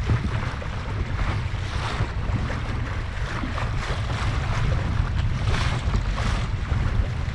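Water rushing and splashing along the hull of a Laser Pico sailing dinghy moving through choppy water, with irregular splashes, under a heavy low rumble of wind buffeting the microphone.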